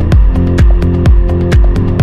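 Electronic dance music soundtrack with a steady kick drum, about two beats a second, and hi-hat ticks between the beats.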